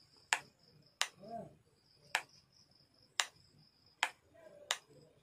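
Plastic rocker switch on an extension board clicked on and off six times at uneven intervals, switching the repaired LED bulb.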